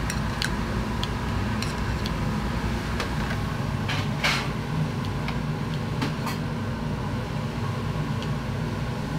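Steady low hum of kitchen machinery, with scattered light clicks and clinks of metal kitchen scissors and a steel serving tray as grilled patties are plated. The loudest knock comes about four seconds in.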